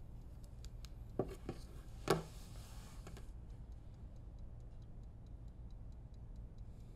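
A clock ticking softly and regularly over a low room hum. About a second in there are a few soft knocks, along with a rustling hiss that lasts about two seconds.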